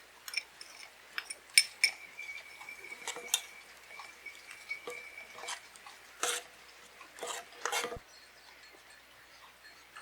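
Kitchen utensils and dishes clinking and knocking, in a handful of separate sharp strikes.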